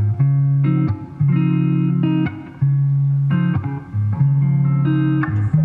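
Background music: guitar-led instrumental, plucked notes and chords changing about every half second.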